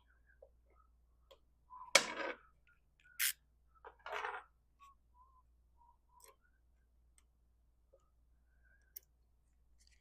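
Scattered clicks and clinks of hand tools and small metal parts being handled at a workbench. There is one louder clatter about two seconds in, a sharp clink just after three seconds, and a short rattle about a second later.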